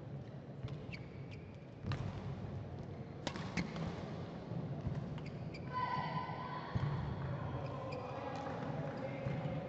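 Badminton rally: sharp cracks of rackets striking the shuttlecock, several in the first few seconds, echoing in a large sports hall. About six seconds in, a high drawn-out sound starts and lasts a few seconds.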